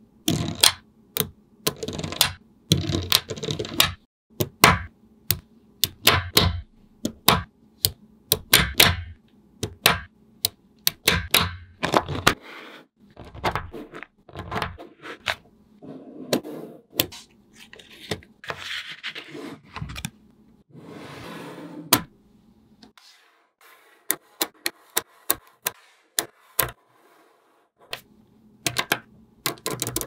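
Small metal magnetic balls clicking and clacking as they snap together and are pulled apart, in quick irregular sharp clicks. In places, slabs of balls shifting against each other give a softer rattling scrape.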